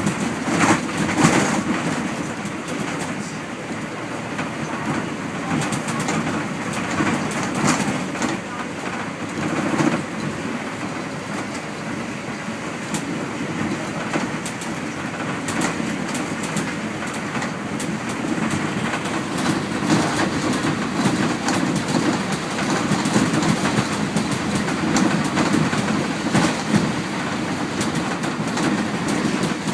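MAN 18.310 single-deck bus under way, heard from inside: a steady engine and road drone, with frequent sharp rattles and knocks from the body and fittings over the whole stretch.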